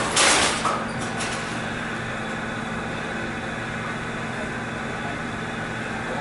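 Bowling alley ambience: a short loud clatter right at the start, then a steady low machine hum under even background noise.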